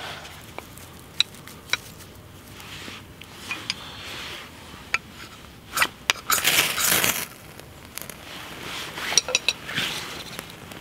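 A knife scraped down a ferro rod throws sparks onto a wood wool bundle: one long scrape about six seconds in, with scattered small clicks and taps before it. The wood wool catches and crackles lightly near the end.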